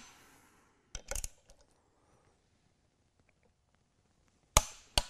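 Torque wrench clicking as the supercharger bracket's bolts reach the set torque of 38 foot-pounds. There is a sharp click about a second in with a few lighter knocks just after it, then two sharp clicks about half a second apart near the end.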